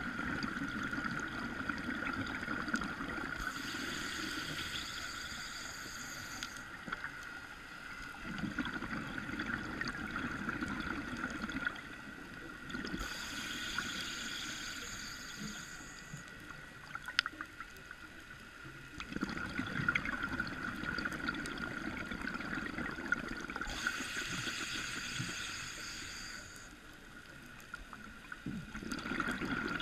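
Scuba diver breathing through a regulator, heard underwater: three hissing inhales, each followed by a longer spell of rumbling exhaust bubbles, about every ten seconds. A steady high tone runs underneath.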